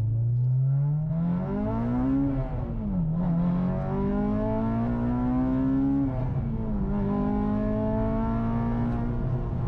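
Acura RSX Type S's K20Z1 four-cylinder engine, breathing through aftermarket headers and exhaust, pulling hard under throttle. The revs climb, drop at an upshift about two and a half seconds in, climb again, and drop at a second upshift at about six and a half seconds, then hold nearly steady.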